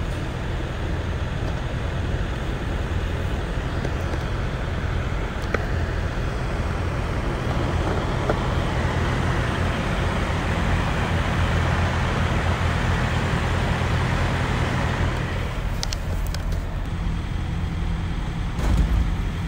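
Semi-truck's diesel engine running steadily, with a hiss that swells through the middle and drops away about 15 seconds in. A few sharp clicks come near the end.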